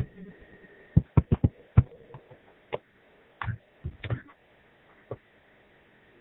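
Sharp clicks and knocks from a Nerf shotgun battle, about ten in all: a quick cluster of four or five about a second in, then single ones spaced out until about five seconds in.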